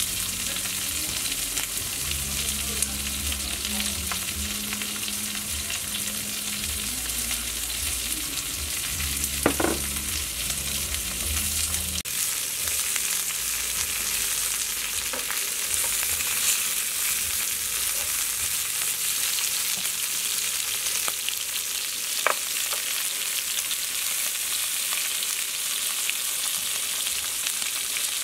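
Sliced cow udder, red pepper and cabbage sizzling on a hot grill plate: a steady frying hiss, with a couple of sharp ticks from the pan.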